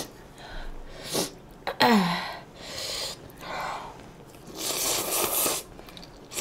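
A woman slurping thick instant ramen noodles from chopsticks in several noisy sucks, the longest about five seconds in. About two seconds in there is a short burp that falls in pitch.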